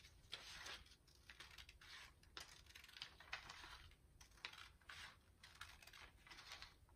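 Scissors cutting a strip of brown paper, faint repeated snips about twice a second, following a drawn line.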